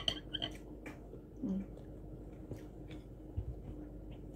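Quiet eating sounds: scattered faint clicks and small mouth noises as noodles are eaten with chopsticks and a fork, with a brief hummed "mm" about one and a half seconds in.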